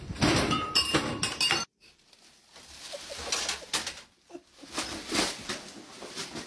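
A brief loud clatter of knocks and clinks cuts off suddenly near the start. After it, a thin plastic bag crinkles and rustles in short bursts as a cat moves about inside it.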